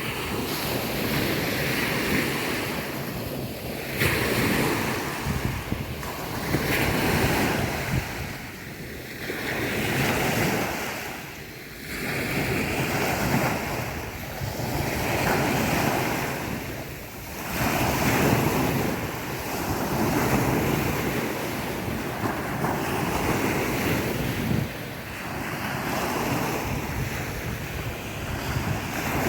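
Sea waves washing onto a beach, the surf swelling and fading every two to three seconds.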